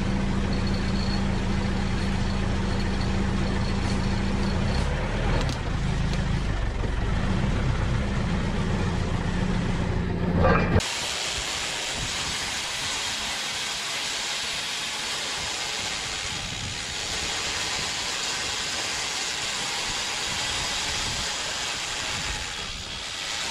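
Woodworking machinery running: a steady low engine-like hum for about ten seconds, then an abrupt change to a steady loud hissing noise.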